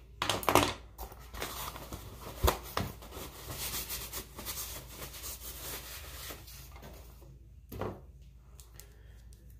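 Handling noises from makeup products and containers being picked up and moved about close to the microphone: rustling and scraping with a few sharp clicks, heaviest in the first half, then one more short rustle near the end.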